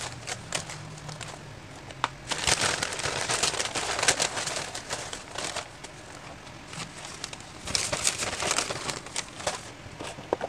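Brown paper takeaway bag rustling and crinkling as food boxes and sauce sachets are taken out of it, in two longer spells of crackly rustle, with a few knocks of the boxes on the table.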